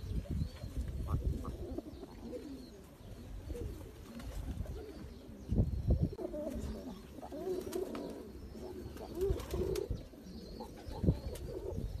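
Domestic pigeons cooing in low, wavering calls, with occasional low thumps, the loudest about halfway through.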